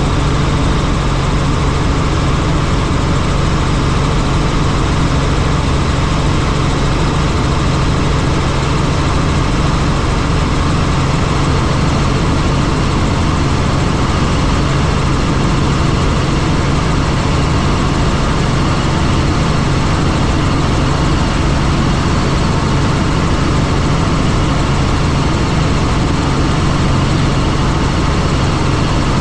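Helicopter engine and rotor running steadily: a loud, even drone with a strong low hum and no change in pitch.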